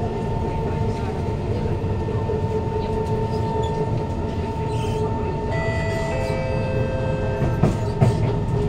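Kawasaki Heavy Industries C151 train running, heard from inside the car: its GTO-VVVF traction motors whine in steady tones over the rumble of the wheels on the track. About two-thirds of the way through, several further higher tones from the motors come in and drop out in steps.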